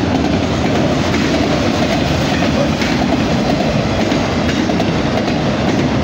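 Enclosed auto-rack freight cars rolling past, a steady loud rumble and clatter of steel wheels on the rails.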